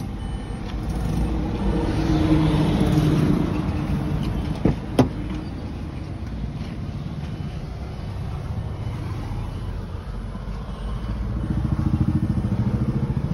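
Traffic noise from passing vehicles, with engine hum swelling twice. Two sharp clicks about five seconds in come from a car door being opened.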